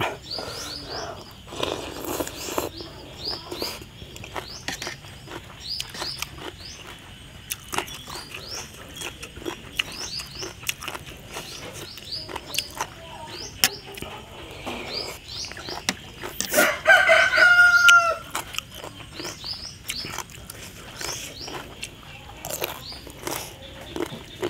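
A rooster crows once, a bit over two-thirds of the way through; it is the loudest sound here. Around it, short high chirps repeat throughout, with scattered sharp clicks of a fork and spoon against a metal tray.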